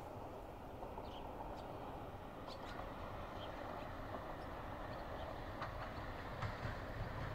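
Distant rumble of an approaching freight train hauled by diesel locomotive 648 002, steady and slowly growing louder, with the low rumble building near the end. A few faint high chirps sound over it.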